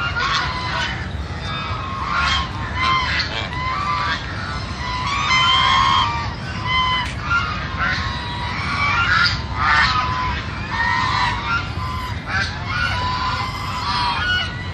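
A flock of white domestic geese honking, many short calls overlapping and repeating all through.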